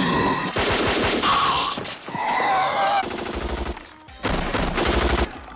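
Film soundtrack: automatic gunfire in rapid bursts, with voices crying out twice in the first half and heavier low bangs near the end.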